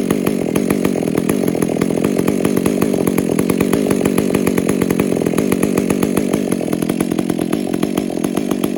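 Stihl MS 400 C two-stroke chainsaw running loud and steady, with a fast, even engine pulse.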